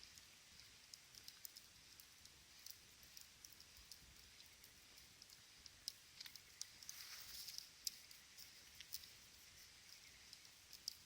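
Small campfire crackling faintly: irregular sharp pops and ticks over a soft hiss, with a short stretch of livelier hissing about seven seconds in.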